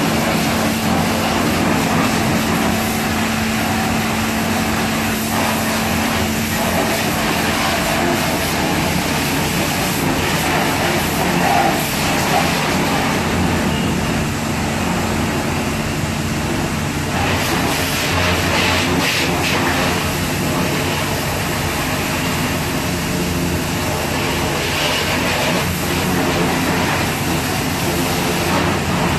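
High-pressure washer running steadily, its pump humming and the water jet hissing as it sprays a motorcycle.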